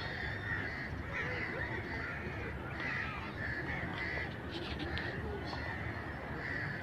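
Birds calling: a string of short calls repeating every fraction of a second, over steady low background noise.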